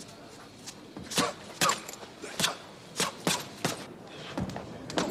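Short, sharp, irregular sounds of a man shadowboxing in boxing gloves, about seven or eight of them spread through the few seconds.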